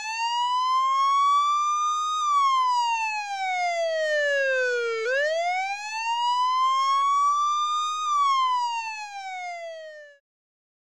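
Emergency vehicle siren sounding a slow wail: the pitch rises for about three seconds and falls for about three, twice over, then cuts off suddenly near the end.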